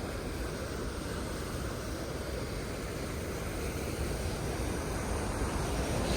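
Niagara Falls: the steady rushing roar of the falling water, heaviest in the low end, growing slightly louder toward the end.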